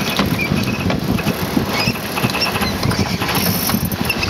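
Wind buffeting the microphone and water rushing along the hull of a heeled sailboat under way, a steady low rumble with a few short high squeaks and clicks.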